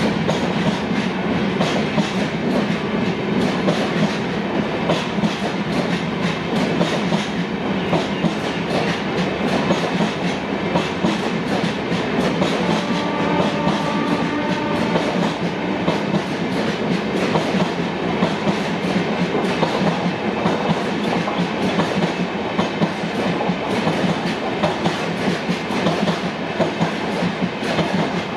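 LHB passenger coaches of an express train rolling past at speed, their wheels keeping up a steady, rapid clickety-clack over the track.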